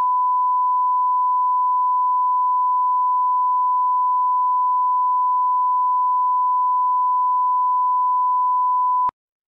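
A steady 1 kHz line-up test tone, one unchanging pure pitch at a constant level, that cuts off abruptly about nine seconds in.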